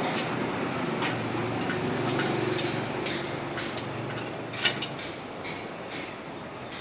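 Metal clicks and clanks from a paddy reaper's steel handle and frame being fitted together by hand, the sharpest click about two-thirds through. A low steady hum runs beneath and fades out about two-thirds through.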